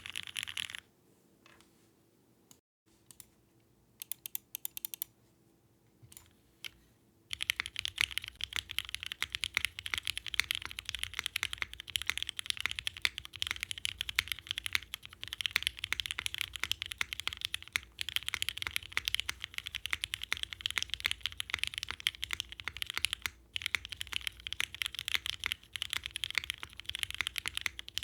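Typing on a Bakeneko mechanical keyboard with linear switches on an aluminium plate and ABS keycaps. A burst of keystrokes stops at the start, a few faint clicks follow during a pause, and a steady run of fast keystrokes starts about seven seconds in, on Cherry MX Black switches.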